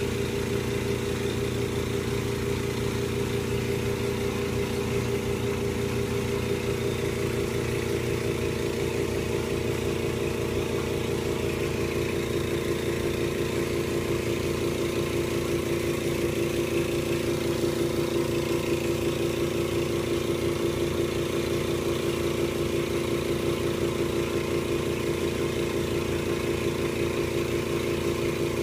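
Aquarium air pump giving a steady buzzing hum as it drives the sponge filter.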